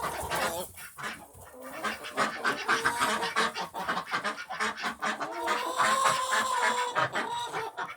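A flock of domestic ducks quacking, many voices overlapping in a steady chatter.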